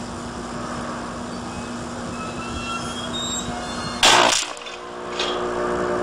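Electrical arcing at a high-voltage substation disconnect switch: a steady hum with faint squealing tones, then about four seconds in a loud, brief burst lasting under half a second as an arc flares at the tip of the switch blade, followed by the hum again.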